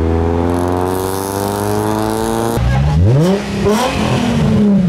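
Car engine being revved hard: held high and slowly climbing for about two and a half seconds, then let off and blipped up and down several times in quick rises and falls.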